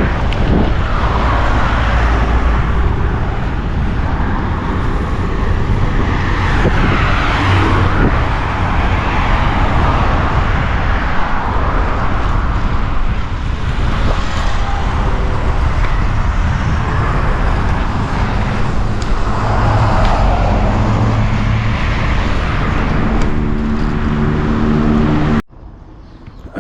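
Traffic on a highway heard from a moving bicycle: cars passing one after another in swells over steady wind rumble on an action camera's microphone, with a vehicle engine humming near the end. The sound drops off abruptly just before the end.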